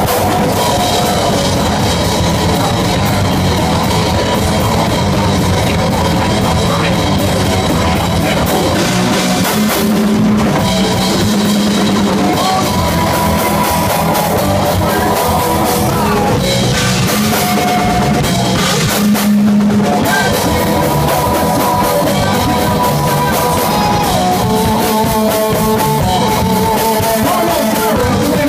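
Rock band playing live, with drums and guitar.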